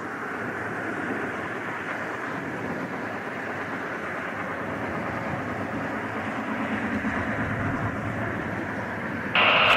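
Twin-engine jet airliner on approach, a steady jet engine rumble and whine that grows slightly louder as it nears. Near the end, a radio voice cuts in suddenly and louder.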